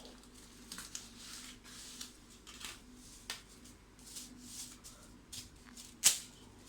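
Hands mixing and shaping minced chicken for kofta meatballs: soft, wet squishing and rustling. A sharp knock comes about six seconds in, over a faint steady low hum.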